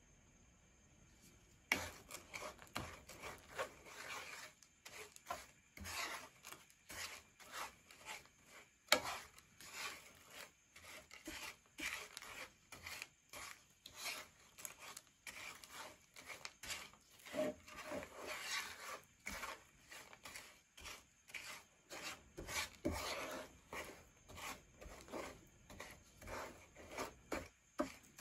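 Wooden spatula scraping and pushing granulated sugar around a non-stick frying pan in repeated strokes, starting about two seconds in: sugar being stirred over the heat until it melts.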